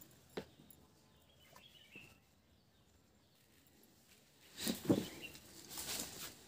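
Quiet outdoor ambience with faint bird chirps, and a few short knocks or rustles about five seconds in.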